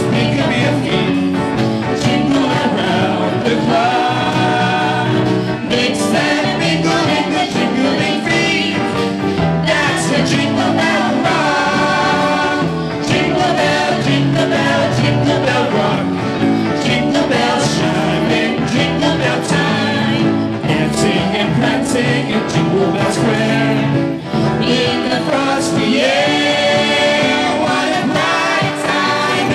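A live band playing a Christmas pop song, with several singers singing together over electric guitar, keyboard and drums.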